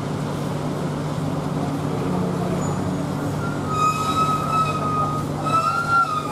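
A truck engine running steadily as the truck drives off the ferry ramp. In the second half a high-pitched horn sounds twice, each blast about a second and a half long, the second wavering slightly in pitch.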